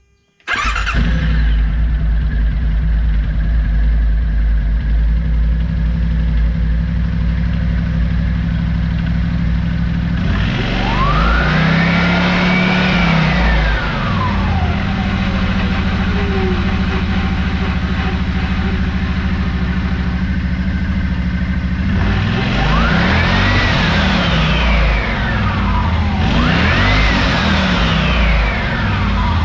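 Yamaha Wolverine X4's 847 cc parallel-twin engine starts about half a second in and idles, with the CVT cover off and the belt and clutches turning. This is a test start after installing a new JBS primary sheave. The throttle is blipped three times, each rev rising and falling back to idle.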